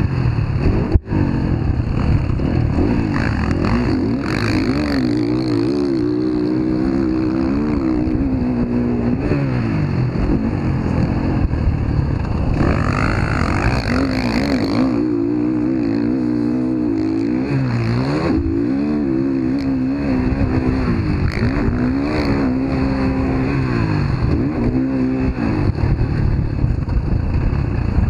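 Motocross dirt bike engine heard up close from on the bike, revving up and down continuously as the rider accelerates and backs off through the track's jumps and turns.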